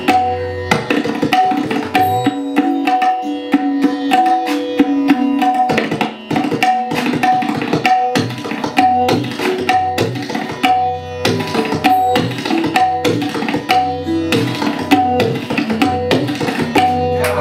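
Two tabla sets played together in a fast duet: a dense, unbroken run of strokes with ringing tuned tones from the drums.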